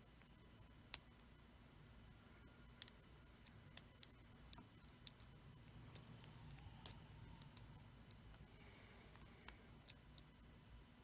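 Faint, irregular clicks and ticks of a Peterson Gem pick working the pin tumblers of a Brinks solid brass padlock, with the sharpest click about a second in.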